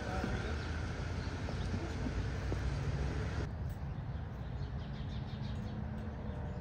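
Steady low rumble of street traffic, with faint short high-pitched calls in the second half.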